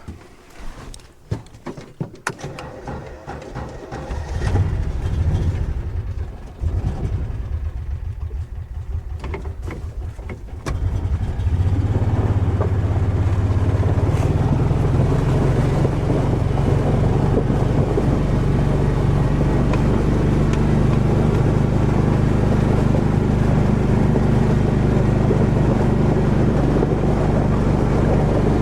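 Kawasaki Mule utility vehicle's engine starting about four seconds in after a few knocks and steps, running unevenly, then settling from about twelve seconds in into a louder, steady run as it drives off.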